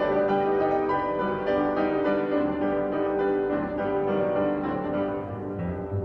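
Classical background music with long held notes.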